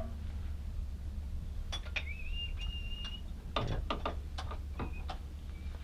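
Scattered light metallic clicks and taps, with a thin high squeak lasting about a second, about two seconds in, over a steady low hum.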